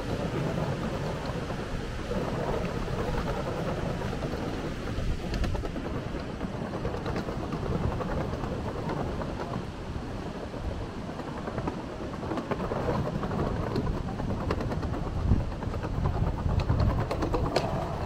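Steady roar of a waterfall's falling water, a dense rushing noise with a deep rumble that rises and falls.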